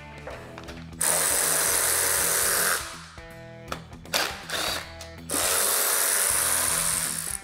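A cordless power tool runs twice for about two seconds each, starting about a second in and again about five seconds in, spinning fasteners out of a small-block Chevy 350 during teardown. A few light clicks fall between the runs, over background music.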